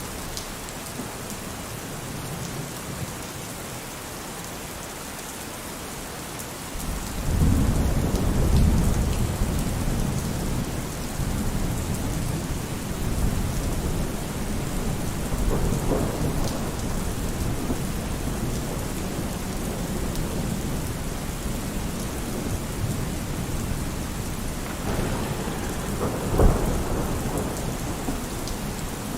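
Steady rain falling, with thunder rumbling in about a quarter of the way through and rolling on, and a sharper thunderclap near the end.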